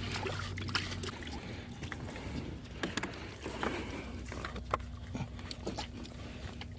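Water sloshing with scattered knocks and clicks as pipe fittings are handled in a wet trench, over a low steady hum.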